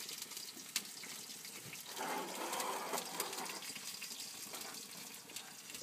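Pasta cooking water being poured out of the pot to drain the pasta, gushing and splashing. It swells up about two seconds in.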